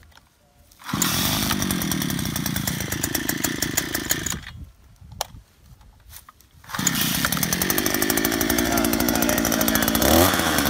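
Oshima 2P earth auger's 49.9 cc single-cylinder two-stroke engine being pull-started cold with the choke closed. It catches about a second in and runs for about three seconds, then stops. It is started again about seven seconds in and keeps running, with its pitch rising and falling near the end.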